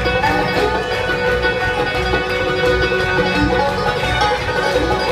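Bluegrass band playing an instrumental passage live, with no singing: five-string banjo, fiddle, mandolin, acoustic guitars, dobro and bass over a steady beat.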